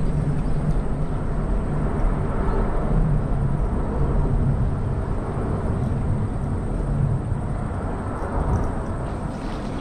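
Steady low rumble of road traffic crossing the concrete bridge overhead, easing slightly near the end.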